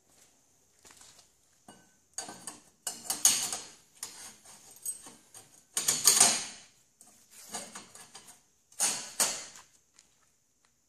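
Round stainless steel bars scraping and clinking against a stainless grille frame as they are pushed by hand through the holes in its rails. The metal scrapes and rattles come in irregular bursts, loudest about three and six seconds in, with a shorter one near nine seconds.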